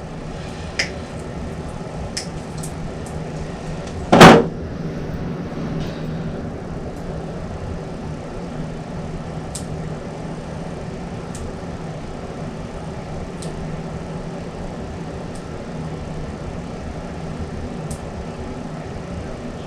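Motorcycle wheel turning freely on a static balancing stand, with faint ticks about every two seconds that come a little further apart as it slows, over a steady low hum. One loud knock about four seconds in.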